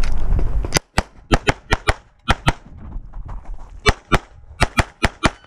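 Walther PDP Steel Frame 9mm pistol fired rapidly, about fourteen shots mostly in quick pairs (two per target), with a pause of over a second midway.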